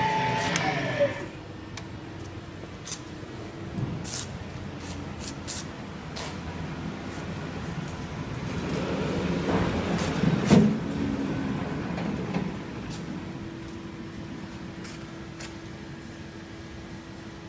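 Scattered light clicks and knocks over a low shop hum, with a louder swell and a knock about ten seconds in. A steady low hum sets in about two-thirds of the way through.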